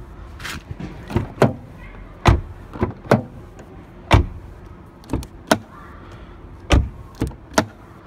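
Knuckles knocking on the outer metal panel of a car door, about a dozen sharp knocks at uneven spacing, some in quick pairs, to test how solid or hollow the door sounds.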